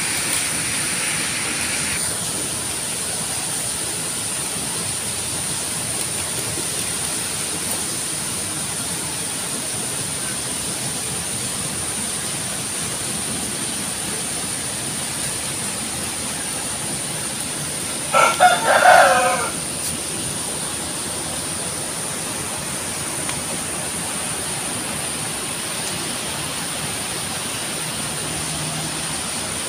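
A village rooster crows once, about a second and a half long, a little past the middle, over a steady background hiss.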